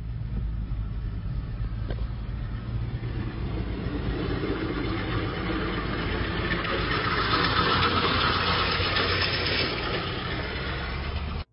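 Car engine and road noise heard from inside a moving car: a steady low hum under a rushing sound that builds to its strongest just past the middle, then eases near the end.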